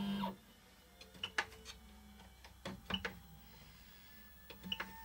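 Stepper motors of a DIY Lowrider CNC whining as the machine jogs, stopping a fraction of a second in; then a handful of light clicks and taps while it stands still.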